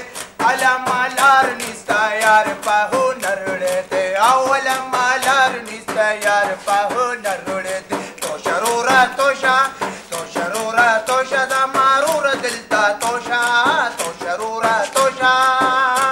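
A man singing a song over instrumental accompaniment with a quick, steady percussive beat.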